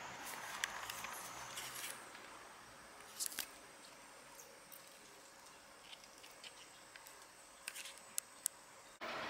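Scattered light clicks and rustles as pepper plant leaves brush against the handheld camera moving through the planter, over a faint steady hiss; a louder steady hiss cuts in suddenly near the end.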